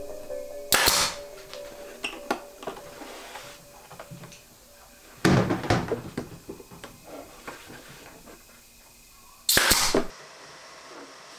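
Pneumatic brad nailer firing three times, about a second in, midway and near the end, each a sharp bang with a short burst of air, with light knocks from the plywood panel being pressed into place between shots.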